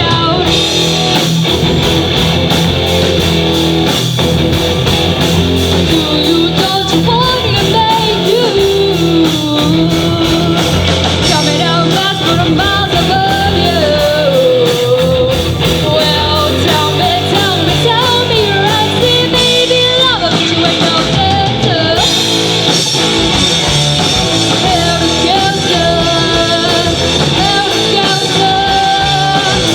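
Rock band playing live, a lead singer over guitar and a full band at a steady loud level.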